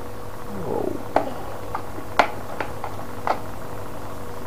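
Plastic clicks and knocks from handling a toy drone's hard-plastic radio transmitter, a few sharp clicks about a second apart, over a steady low hum.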